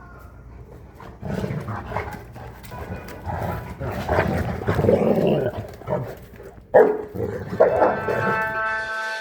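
Fila Brasileiro dog growling and giving deep barks over a steady low rumble, with two sharp, loud barks near the end.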